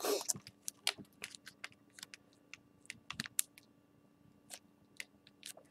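Stack of football trading cards being thumbed through, card edges flicking and sliding against each other: a faint run of light, irregular clicks that thins out after about three and a half seconds.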